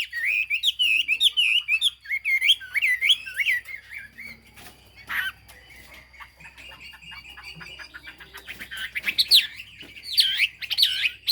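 Chinese hwamei singing: loud, rising and falling whistled phrases, then a quieter stretch of fast chattering notes in the middle, and loud swooping whistles again near the end.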